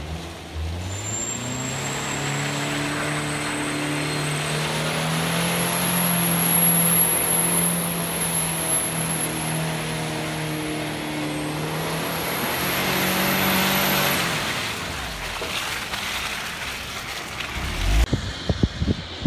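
Subaru Forester's flat-four engine revving up and held at high revs while the car spins donuts on loose, leaf-covered dirt, with a steady hiss of spinning tyres and flung dirt. The revs fall away about fourteen seconds in. Near the end, low gusty thumps take over.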